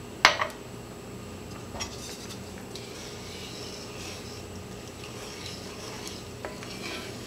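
Wooden spoon stirring thick tomato gravy in a cast-iron skillet, scraping and lightly tapping the pan. A single sharp knock comes about a quarter second in and is the loudest sound.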